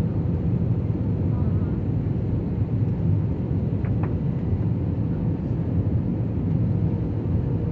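Steady low rumble of an airliner cabin during the landing descent: jet engine and airflow noise heard from a window seat, with a faint steady hum over it.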